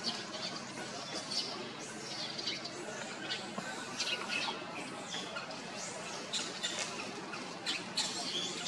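Many short, high-pitched animal squeaks and chirps, scattered irregularly and overlapping, over a steady background hiss.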